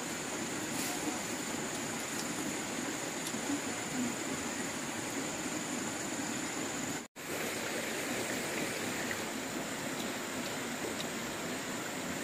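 Steady outdoor background hiss with a faint, high, steady whine above it, cut off completely for a split second about seven seconds in.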